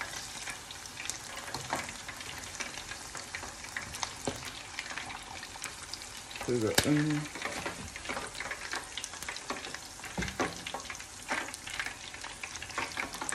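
Chicken wings deep-frying in a pot of hot oil: a steady sizzle full of small crackling pops. A brief sound of a voice about seven seconds in.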